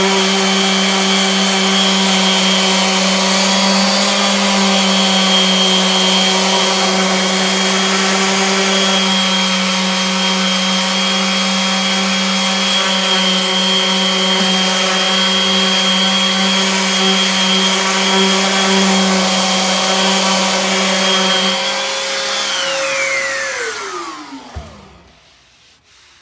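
Electric power sander with 60-grit paper and dust collection running steadily, sanding dried Bondo body filler on wood veneer. Near the end it is switched off and its motor winds down to a stop.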